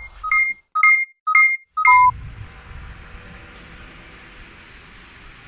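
Electronic sound effect: four quick two-note beeps about half a second apart, then a single plain steady beep about two seconds in, followed by low background hiss.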